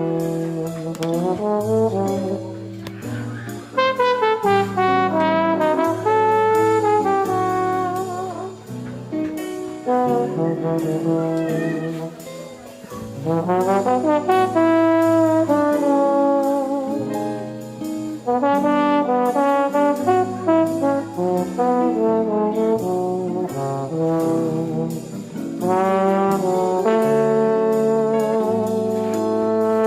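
Background instrumental music: a lead melody moving note to note over a bass line, with a light beat.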